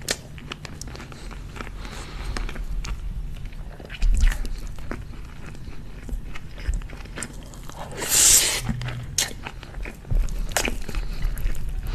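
Close-miked chewing and mouth sounds of a man eating chicken and rice, with irregular wet clicks and smacks. A louder hissing burst comes about eight seconds in.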